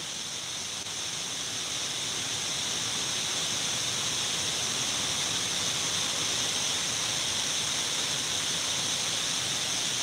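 Waterfall's steady rushing hiss of falling water, growing slightly louder over the first few seconds.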